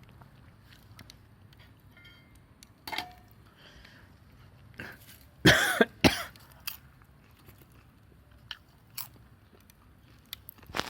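A person coughing twice in quick succession about halfway through, the first cough longer, amid scattered small clicks and crunches.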